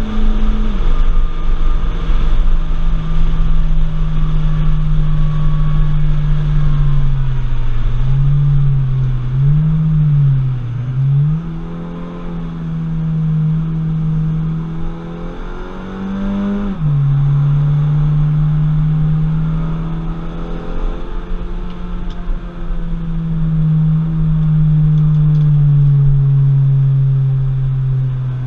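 An Audi TT's engine running hard on a race track, heard from inside the cabin. Its pitch drops sharply about a second in, wavers up and down through a braking and downshift stretch, climbs again and drops sharply at an upshift around the middle, then holds steady until another shift at the very end.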